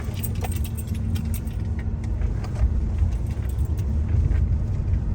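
Truck running, heard from inside the cab: a steady low engine and tyre rumble with a faint hum, and light metallic jingling and clicking rattles over the first few seconds, like keys jangling as the truck bumps along.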